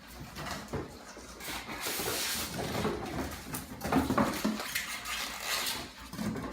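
Rustling and handling of cardboard and packing paper as an air compressor is unboxed, with a short pitched sound about four seconds in.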